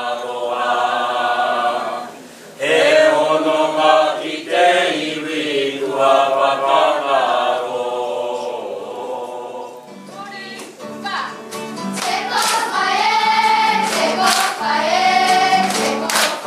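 A group of men singing together in phrases. About ten seconds in, the sound changes to a children's kapa haka group singing to a strummed guitar.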